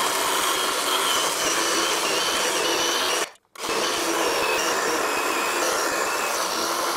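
Greenworks 10-inch cordless electric chainsaw cutting slowly through a dry fir log: a steady electric motor whine with the chain rasping through wood. It breaks off abruptly for a moment about three seconds in, then carries on.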